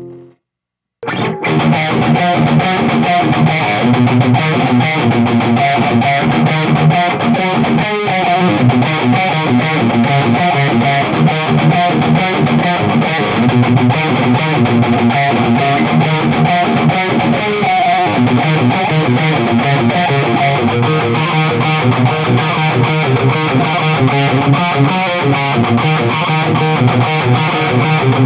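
Distorted electric guitar riffs: a Stratocaster's Seymour Duncan Distortion bridge pickup straight into a Mesa Badlander 25 tube head, heard through a closed-back Mesa cabinet. The playing starts after about a second of silence and then runs on steadily.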